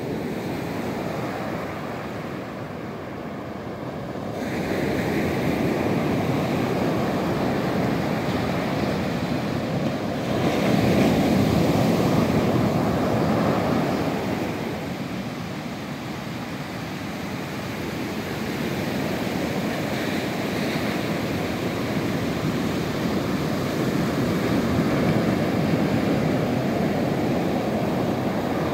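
Pacific Ocean surf breaking and washing up a sandy beach, a steady rushing that swells and eases with each set of waves, loudest about eleven seconds in.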